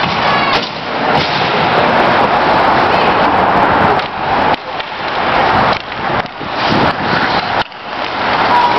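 Continuous noise of youth ice hockey play: skates scraping the ice, with sticks and puck clacking.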